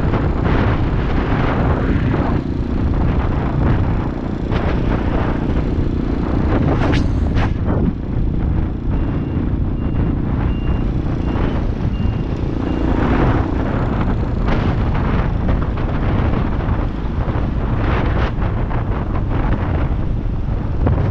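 Wind buffeting a helmet-mounted camera while riding a Tao TBR7 250cc dual-sport motorcycle, with the bike's engine running underneath. Around the middle, a string of short, evenly spaced high beeps sounds for about four seconds.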